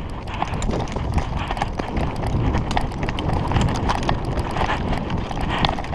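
A person running, quick footsteps thudding on the ground with gear jostling, a steady run of short knocks and clicks.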